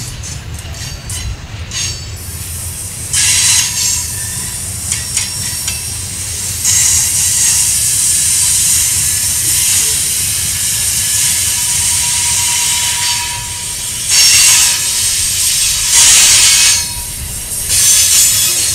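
Freight train of covered hopper cars rolling past: a steady low rumble of steel wheels on rail, with high-pitched wheel squeal and hiss coming and going in stretches, loudest about three seconds in, from about seven to thirteen seconds, and twice more near the end.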